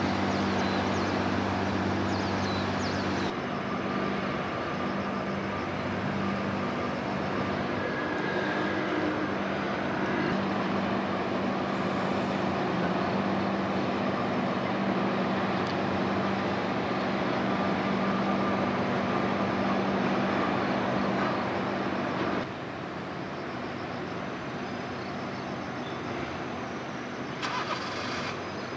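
Steady low drone of a passing heavy-lift ship's diesel engine, with a constant low hum; the level drops a little about three-quarters of the way through.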